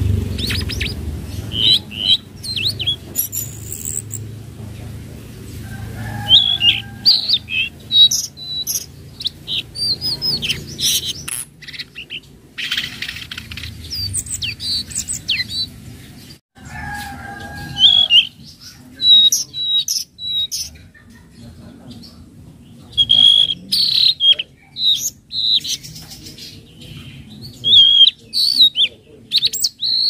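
Tledekan laut songbird singing a varied song of quick high chirps, sharp whistled notes and fast trills in irregular bursts. A low rumble runs underneath in the first part.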